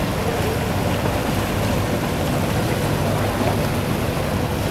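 Small harbour ferry boats' engines running steadily on the water, a low continuous rumble.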